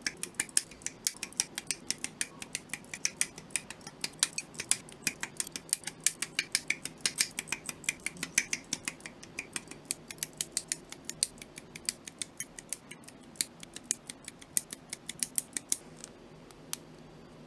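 Hobby side cutters snipping plastic HG 1/144 Gundam Aerial kit parts off their runners: a quick series of sharp clicks, several a second. Near the end the clicks thin out to a few as the parts are pressed together by hand.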